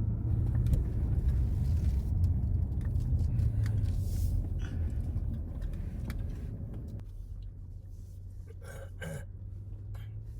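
Low, steady rumble of a car on the move, easing slightly in the second half, with a couple of faint short sounds near the end.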